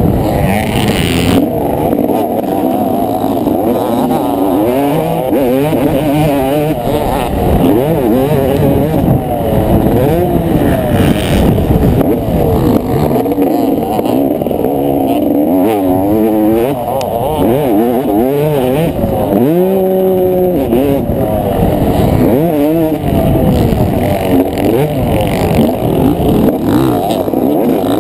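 Motocross dirt bike engine heard from a camera on the bike, revving hard and dropping off again and again as the rider accelerates, shifts and rolls off through turns, with a long rising rev about two-thirds of the way through.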